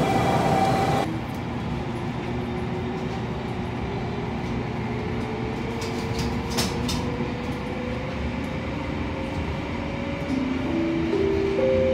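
Relay Kamome limited express pulling away, heard from on board: the electric train's traction motors whine in several tones that slowly rise in pitch as it gathers speed, stepping up near the end. A few sharp clicks come around the middle.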